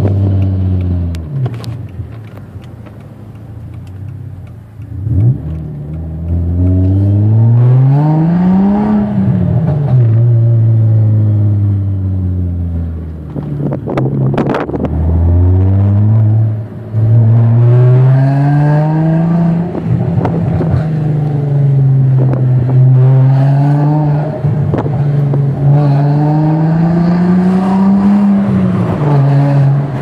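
Audi A4 wagon engine with an aftermarket exhaust, heard from inside the cabin. The engine pulls hard several times, its pitch climbing and then dropping sharply at each shift or lift off the throttle, with steady cruising between the pulls. A short, sharp burst of noise comes about halfway through.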